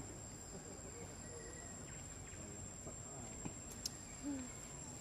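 Forest ambience with a steady, high-pitched insect drone, a couple of faint clicks, and a brief low falling call about four seconds in.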